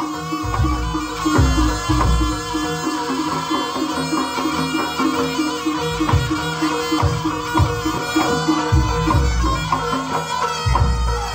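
Live Javanese jaranan ensemble music: a reedy, shawm-like wind instrument holds a sustained melody over ringing gong-chime tones, with deep drum strokes coming in clusters.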